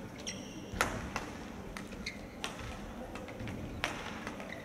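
Badminton rally: sharp racket hits on the shuttlecock, the loudest about a second in, mixed with footfalls and a brief shoe squeak on the court floor, over a low hall murmur.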